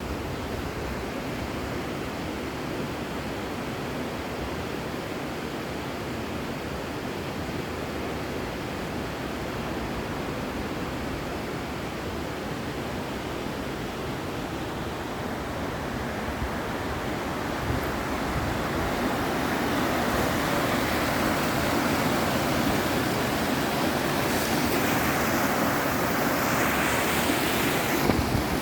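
Steady rush of flowing water, growing louder about two-thirds of the way through.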